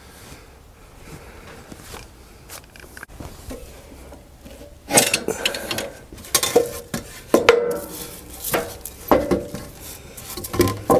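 Irregular clattering knocks and clinks of things being handled at a bandsaw mill. It starts with faint rustling and scraping, then about halfway through breaks into a run of sharp knocks with a little ringing.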